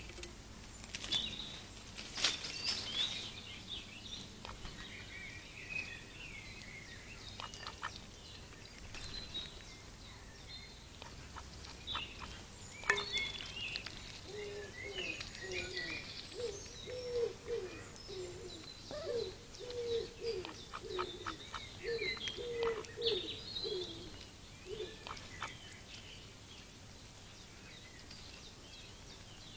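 Small garden birds singing and chirping throughout, with high quick trills and tweets. Through the middle a run of low, short, falling calls repeats about once or twice a second.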